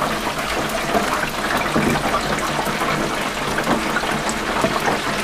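Hot peanut oil in an electric turkey fryer bubbling and sizzling steadily under a freshly fried whole chicken draining in the lifted basket, with a fine crackle throughout.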